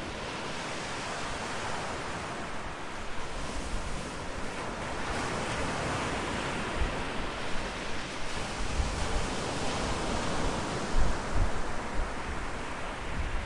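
Steady rushing outdoor ambience with brief low rumbles now and then.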